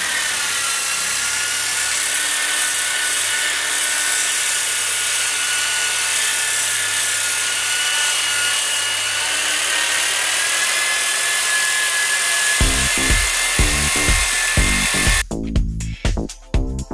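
Power sander running steadily on the stone of a stained terrazzo floor, a high whine that wavers slightly in pitch. About thirteen seconds in, background music with a steady beat comes in, and the sander cuts off suddenly a couple of seconds later, leaving the music.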